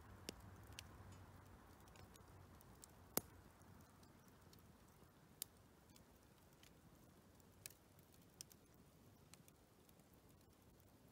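Near silence with a few sharp, faint clicks at uneven intervals, the clearest about three seconds in.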